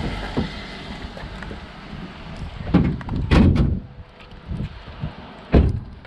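A series of clunks and knocks from the car's bodywork: a couple of light knocks at the start, a heavier clunk-and-thump cluster in the middle, and one sharp knock near the end.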